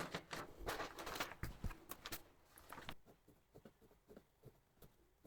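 Faint scattered clicks, knocks and rustles of things being handled, busiest in the first three seconds, then a few soft ticks.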